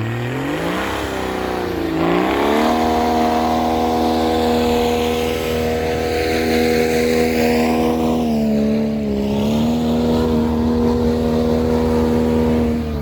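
Off-road SUV engine revved up hard and held at high revs, with a brief dip in pitch about two-thirds of the way through, as the vehicle drives at full effort through deep snow.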